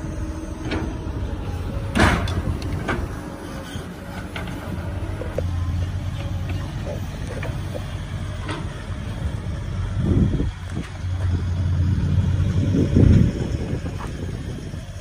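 Heavy diesel machinery running with a steady low drone, with a loud knock about two seconds in and scattered smaller knocks and clicks. The engine note swells louder twice near the end.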